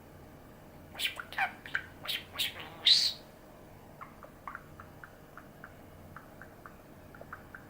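Pet budgerigar chattering in a quick run of chirps over about two seconds, ending in one loud call; then it falls silent, leaving only faint ticks about four a second.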